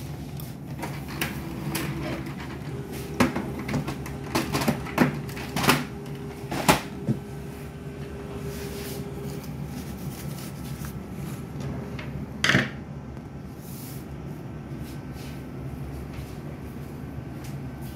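HP LaserJet laser printer starting up: a steady motor and fan hum, with a run of mechanical clicks and clunks and a steady whirring tone a few seconds in, then one louder clunk about twelve seconds in.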